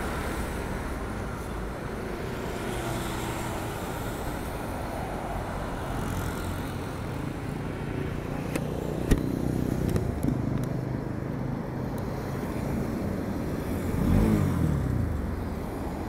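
Motorcycle engine idling with road traffic around it, with one sharp click about nine seconds in. Near the end the engine revs up and falls back as the bike pulls away.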